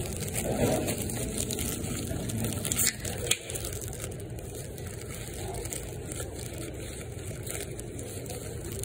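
Close handling noise of rubbing and crinkling against the microphone, with two sharp knocks about three seconds in, over a steady background hum.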